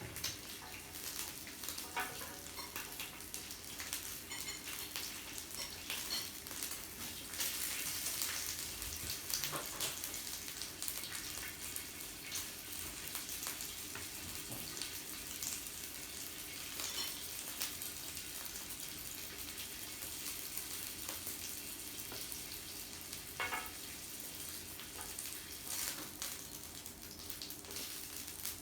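Meat sizzling steadily on a yakiniku grill, with frequent small crackles and pops.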